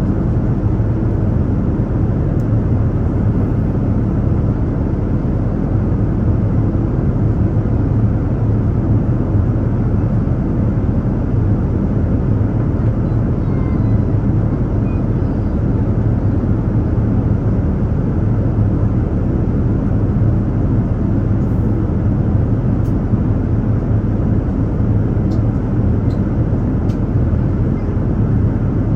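Airliner cabin noise in flight: a steady, deep rumble of engine and airflow with a low hum, unchanging throughout. A few faint light ticks near the end.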